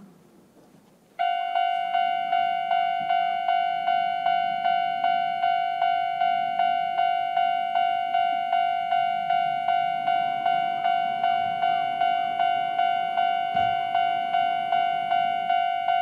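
Japanese railway level-crossing alarm switching on about a second in: an older-type electronic crossing bell repeating one ringing tone at a fast, even tempo. It warns that a train is approaching and the barriers are coming down.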